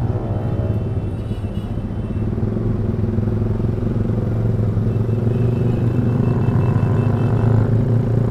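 Yamaha R15 V3's single-cylinder engine running through a loud aftermarket Proliner exhaust while riding, a steady note that grows slightly louder after about two seconds.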